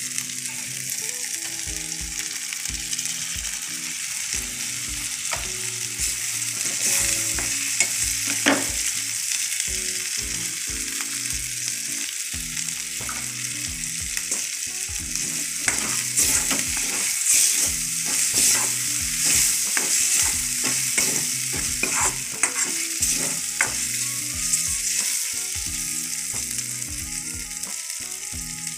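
Onion and spice masala with chopped tomatoes sizzling in hot oil in a metal kadai, while a metal spatula stirs and scrapes against the pan. The scraping and knocking gets busier and louder about halfway through.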